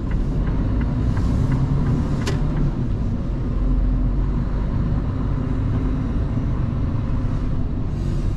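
Truck's diesel engine running with a steady low rumble, heard from inside the cab while driving slowly, with a single sharp click about two seconds in.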